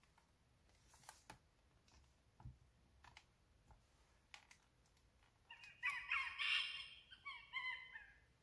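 A baby sound book's small speaker playing a recorded clip of monkeys squeaking with birds twittering, a busy, high chatter of calls lasting about two and a half seconds near the end. Before it come a few soft clicks and knocks from the board-book pages being turned and the button being pressed.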